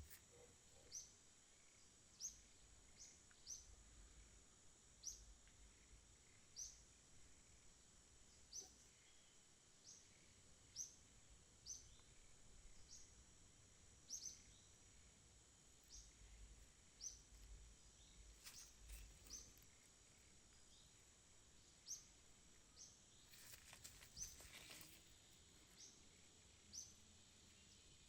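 Faint outdoor ambience: a bird repeating a short, high, falling chirp about once every second or so, with a brief rustle about three quarters of the way through.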